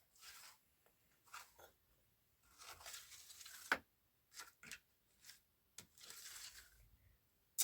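Short bursts of rustling and tearing noise, like dry material being handled, with several sharp clicks. The loudest is a sharp click near the end.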